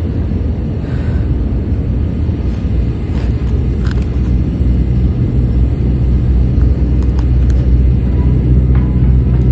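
Low rumble of a motor vehicle engine with a steady hum, growing louder in the second half.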